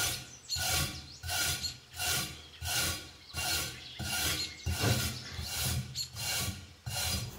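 Wire brush scrubbing back and forth across a cast iron waffle iron plate, scraping off old baked-on waffle residue: regular rasping strokes, about three every two seconds.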